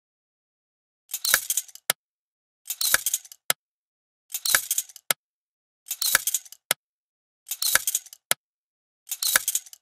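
Cartoon sound effect: six short rattling bursts about one and a half seconds apart, each followed by a single click. They keep time with bounces on a trampoline fitted with a tube dynamo, a magnet in a coil that makes current as it moves.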